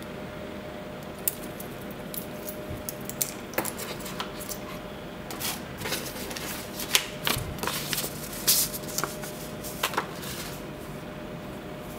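Hands handling a steel-and-wood watch bracelet, a cardboard box and paper cards: a run of small clicks, taps and rustles that is busiest from about five to ten seconds in and dies away near the end.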